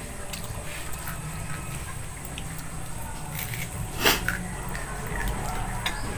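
Eating sounds: chewing and small clicks of hands and food against plates, with one sharper knock about four seconds in, over a steady low hum.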